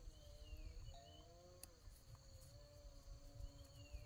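Near silence: faint background with a steady high insect trill and a few faint wavering tones.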